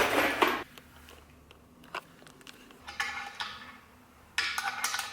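Metal parts and screws of a pull-up bar kit clinking and rattling in a few short bursts as they are handled, with a single click about two seconds in.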